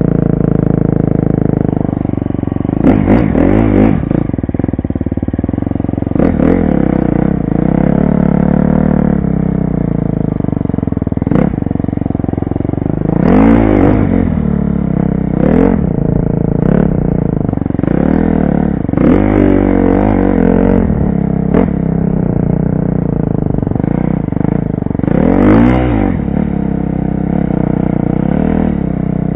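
2012 KTM 250 SX-F single-cylinder four-stroke motocross bike being ridden hard, heard from a helmet camera: the engine revs up and falls back again and again as the rider works the throttle and gears, with about half a dozen strong rises, the loudest near the middle and near the end.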